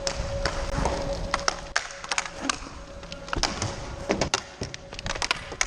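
Roller hockey play: irregular sharp clacks of sticks hitting the puck and each other, several in quick succession.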